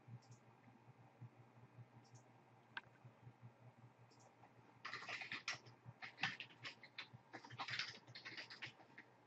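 A faint low hum with a few stray clicks, then, about five seconds in, quick irregular typing on a computer keyboard.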